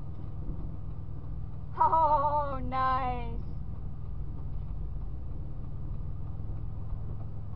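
Steady low rumble of wind on the microphone, broken about two seconds in by a person's two short drawn-out exclamations with wavering pitch.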